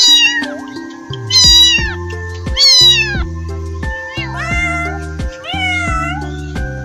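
Domestic cat meowing five times, about one call every second and a half, the first three falling in pitch and the last two dipping and rising again, over background music.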